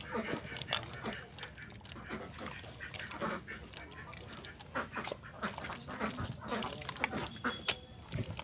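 Beef chunks in marinade being squeezed and mixed by hand in a bowl, making irregular short wet sounds.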